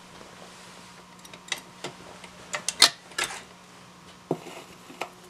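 RCA 45 rpm record changer cycling: a quick run of mechanical clicks and clacks, then a single thump about four seconds in as a record drops onto the turntable, over a steady low amplifier hum.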